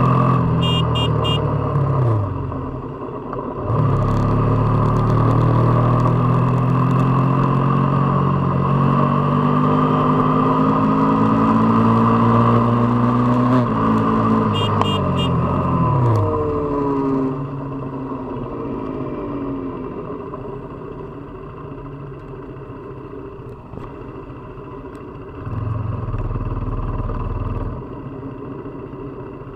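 KTM RC 390's single-cylinder engine and exhaust under way: the note drops about two seconds in, then climbs steadily as the bike accelerates for around ten seconds. It falls away again as the bike slows, then runs quieter, with a brief louder low hum near the end.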